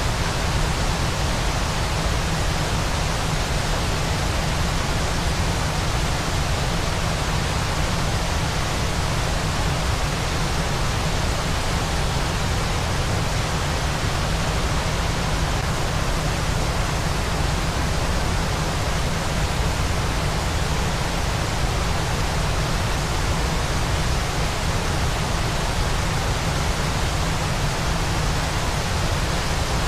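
Waterfall white noise: a steady, unvarying rush of falling water with a strong low rumble under an even hiss that reaches high into the treble.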